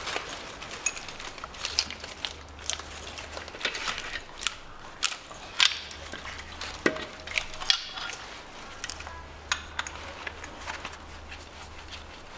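Car alternator being worked free of its engine mount and lifted out by hand: scattered metal clicks and knocks, busiest in the middle stretch.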